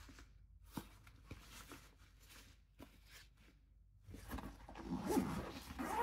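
Nylon fabric and mesh of a camera backpack being handled: faint rustles and small clicks, then louder rustling and shuffling of the fabric from about four seconds in.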